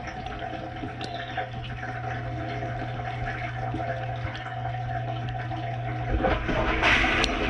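KitchenAid KDTM604 dishwasher mid-cycle: a pump motor hums steadily while water churns in the sump with no spray. About six seconds in the hum changes and water spray starts splashing against the stainless tub, louder.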